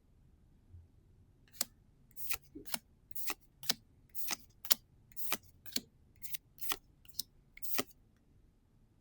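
Gundam Card Game trading cards being flipped through one at a time, a dozen or so short, crisp swishes about two a second.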